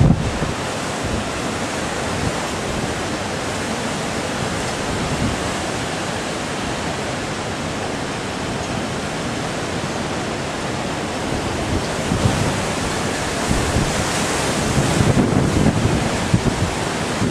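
Rough surf breaking heavily and strong wind, a steady noise of sea and storm, with wind gusting on the microphone in the last few seconds.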